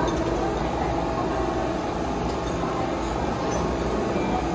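Steady restaurant background noise: an even, constant rumble and hiss with no distinct event standing out.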